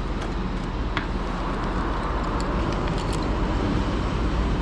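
BMW S1000RR's inline-four engine idling steadily, with a few light clicks about one and three seconds in.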